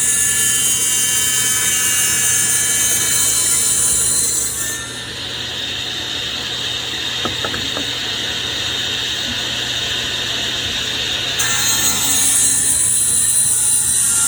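SawStop jobsite table saw running with a steady whine while trimming the edges off a board.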